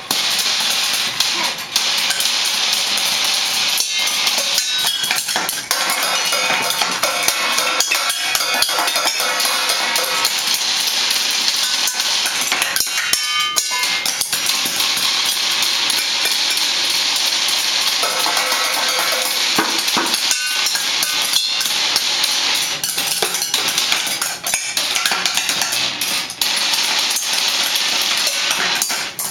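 Children banging on drums and other percussion in a fast, unsteady, continuous clatter with no regular beat.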